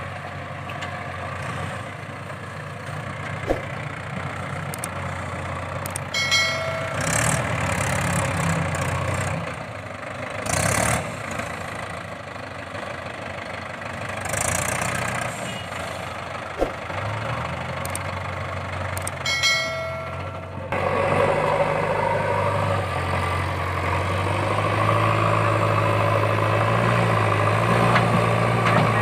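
Diesel engines of a JCB 3DX backhoe loader and a Mahindra 585 DI tractor running steadily, with a horn sounding briefly twice, about six and nineteen seconds in. About two-thirds of the way in the engine sound gets louder as the backhoe works the soil heap.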